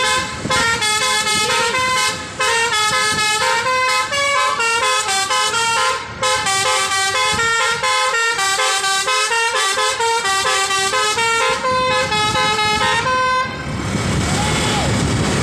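A bus's Basuri telolet horn, a multi-trumpet electric air horn, playing a fast remix melody of short stepped notes. The tune stops about 13 seconds in, leaving the hum of voices and background noise.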